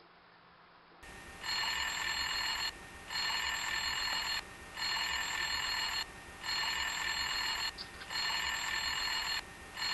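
Telephone ringing on an outgoing call that goes unanswered: five electronic rings, each about a second and a quarter long with short gaps, starting about a second and a half in, and a sixth beginning at the very end.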